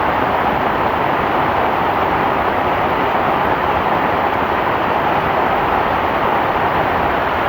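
Heavy rain falling steadily: a loud, even hiss with no single drops or changes standing out.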